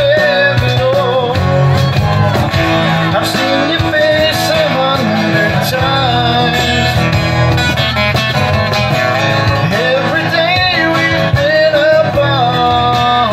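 Live acoustic band playing a song: strummed acoustic guitars with keyboard, and a voice singing the melody over them.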